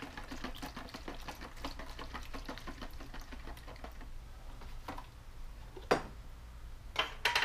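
Small hard items rattling and clicking rapidly in a glass jar for about four seconds. Then come a few sharp knocks, the loudest about six seconds in, as the jar and tub are handled and set down on the shelf.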